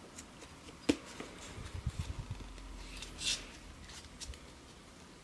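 A Pokémon card booster pack being handled and opened: faint rustling of the foil wrapper and cards, with a sharp click about a second in and a brief crinkle about three seconds in.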